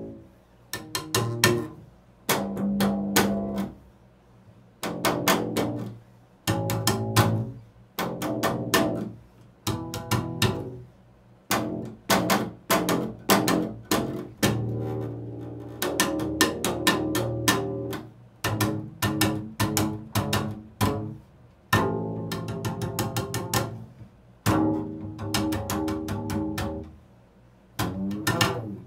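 Double bass played with the bow in short improvised phrases built on the interval of a fourth, each phrase a run of quick, crisply attacked notes, with brief pauses between phrases.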